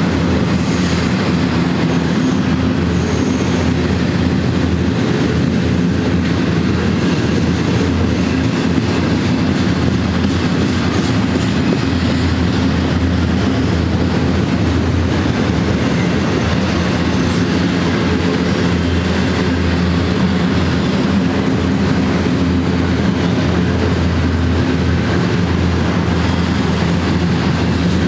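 Double-stack intermodal freight train's loaded well cars rolling past: a steady, even noise of steel wheels on rail and rattling cars.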